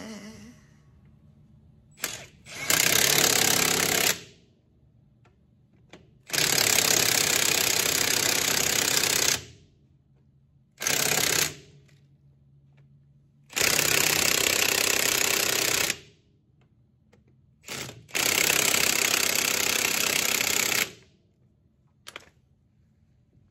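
Milwaukee Fuel cordless impact wrench hammering in five bursts of about half a second to three seconds, with short pauses and a couple of quick blips of the trigger, as the semi truck's driveshaft carrier bearing bolts are run down and tightened.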